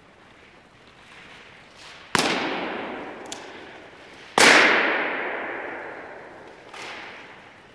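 Two loud latex balloon pops about two seconds apart, each ringing on for a couple of seconds in a large, bare, echoing hall. A small click falls between them and a softer bang comes near the end.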